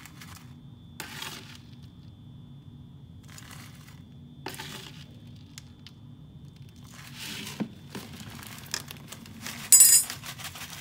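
A metal scoopula scraping into a jar of granular calcium chloride and tipping scoops into a plastic Ziploc bag: several short scrapes and pours of granules, with plastic crinkling. Just before the end comes a brief sharp metallic clink, the loudest sound, as the scoopula is set down.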